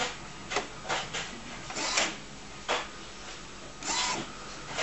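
Epson SX405 inkjet printer running its initial ink-charging cycle: the print-head carriage shuttles and small motors whir in short, irregular bursts, with a longer whir near the end. This is the printer priming newly fitted cartridges, drawing ink through the continuous-supply tubes.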